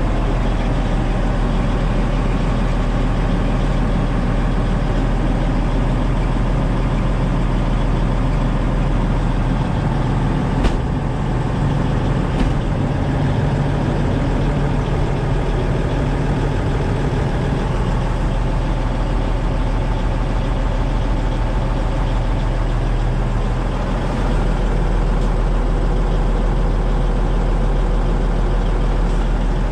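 1997 International F-8200 truck tractor's diesel engine idling steadily, heard from inside the cab. Two brief clicks about ten and twelve seconds in.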